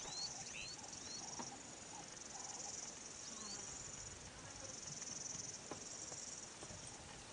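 Faint, steady high-pitched chirring of insects that pulses in level, with a few short rising chirps near the start and again about three seconds in.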